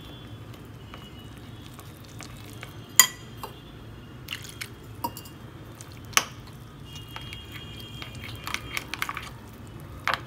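Metal spoon stirring flour and water into a batter in a small glass bowl, clinking against the glass now and then: a sharp clink about three seconds in, another about six seconds in, and a quicker run of clinks near the end, over a low steady hum.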